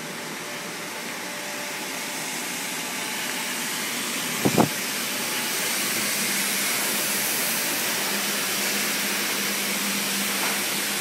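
Steady hissing din of rows of circular sock-knitting machines running, growing louder over the first half. Two short knocks close together about four and a half seconds in.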